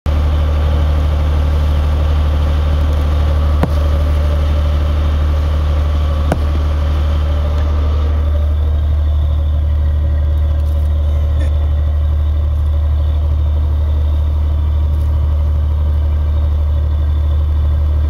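Boat engine idling with a steady, loud low hum. Two sharp clicks come through about four and six seconds in.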